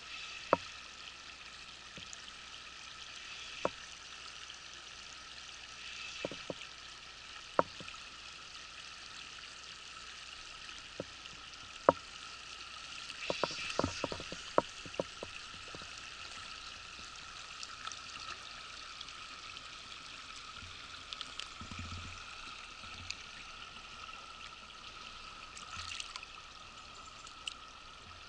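Shallow river water running steadily over rock slabs, with scattered sharp clicks and ticks throughout, a cluster of them about halfway through.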